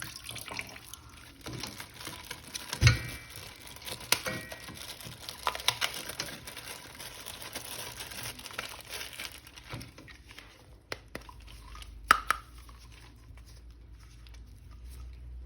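Hands working a plastic action figure: crinkling with scattered light clicks and knocks, the two sharpest about three and twelve seconds in.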